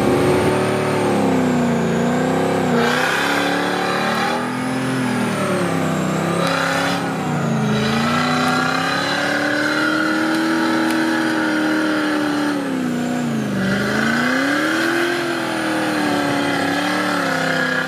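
Off-road buggy's engine revving hard and continuously under load on a steep muddy climb, its pitch rising and falling over and over, with a sharp dip about two-thirds of the way through.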